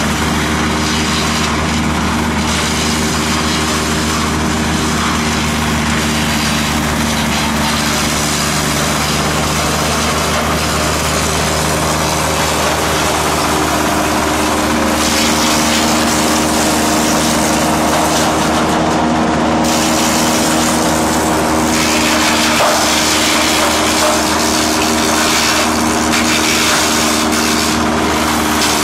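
Diesel engine of a double-inlet wood crusher running steadily under load while branches are fed in and shredded, a rough grinding, crackling noise over the engine's steady hum. The shredding noise swells and fades as branches go in and is loudest about halfway through.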